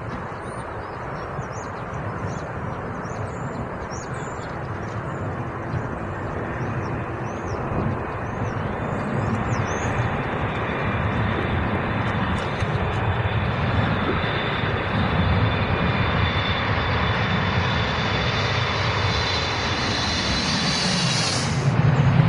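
Boeing 777-200LR's twin GE90 turbofans on final approach, a rumble with a high fan whine growing steadily louder as the airliner closes in. Near the end the whine drops sharply in pitch as the jet passes.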